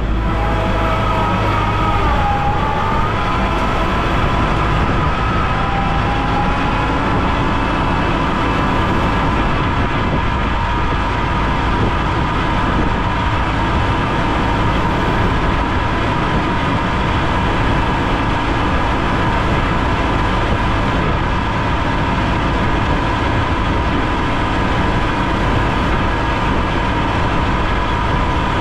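Compact tractor engine running steadily as the tractor drives along, with a steady high whine over the engine note that wavers in pitch during the first few seconds.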